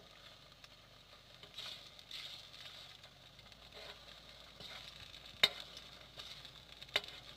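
Batter-coated lotus flower frying in oil in a wok, a soft steady sizzle, with a metal ladle stirring it and knocking sharply against the wok twice near the end.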